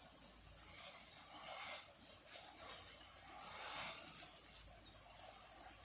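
A few short, faint rustles as cover-crop seed is scooped from a bag and flung by hand over dry, straw-covered soil. Insects chirp steadily in the background.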